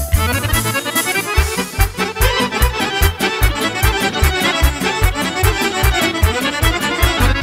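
Accordions playing a fast Serbian kolo dance tune, with rapid runs of notes over a steady bass beat. The bass drops out briefly about a second in, then comes back.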